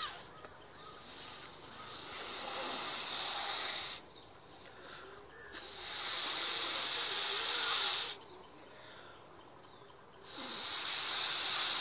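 Rubber balloon being blown up by mouth: three long breaths of air rushing into it, each a steady hiss a few seconds long, with short quieter pauses between for inhaling.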